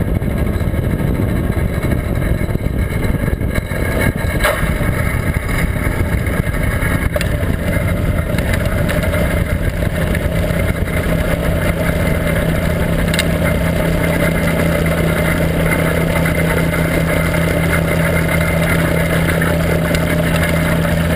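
Quicksilver MXL Sport ultralight's two-stroke engine running under rough wind rush on a strut-mounted camera, with a few sharp knocks. From about halfway through, the engine's steady drone comes through more clearly as the aircraft rolls along the runway.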